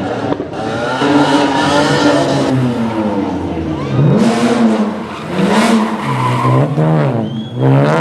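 Rally car engine revving hard, its pitch climbing and dropping several times as it accelerates, changes gear and lifts off.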